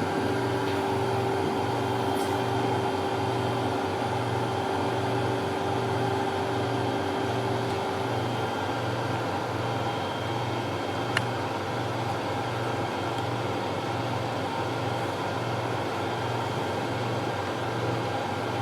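CTL69 cryolipolysis machine running after start, its vacuum and cooling system giving a steady mechanical hum with a low, evenly repeating pulse. A steady higher tone drops out about eight seconds in, and there is a single click about eleven seconds in.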